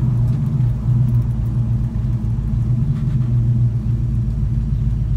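Small-block Chevy V8 of a 1977 Chevrolet C10 running through Flowmaster Hushpower HP-2 mufflers while cruising slowly, heard from inside the cab as a steady low drone.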